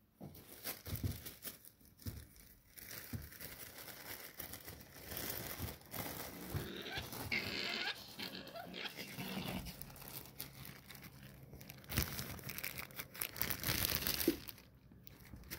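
Gray fox chewing and crunching food, with irregular crackling and a few short animal calls.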